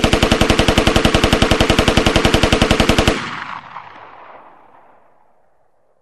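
AK-47 assault rifle firing one long full-automatic burst of evenly spaced shots, about ten a second, for about three seconds. It stops suddenly and an echo dies away over the next few seconds.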